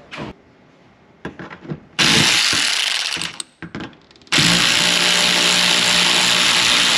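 Pneumatic air ratchet running on a bumper-cover bolt: a few light clicks of handling, a loud run with air hiss of about a second, a short pause, then a second steady run from about four seconds in.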